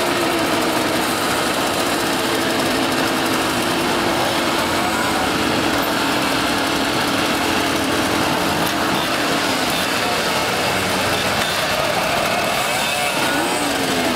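A crowd of small two-stroke moped engines idling together in a steady drone, with a few of them revving up and down near the end.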